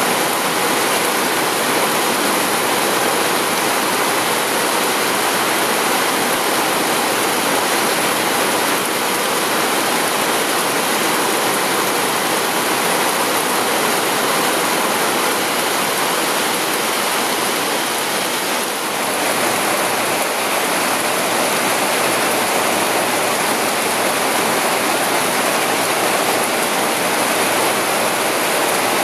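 Heavy downpour of rain, a loud, steady hiss that dips briefly about two-thirds of the way through.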